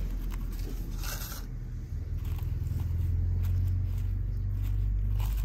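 Light scraping and crinkling as a plastic mould is lifted off a foil tray and kinetic sand is pressed by hand, over a steady low rumble.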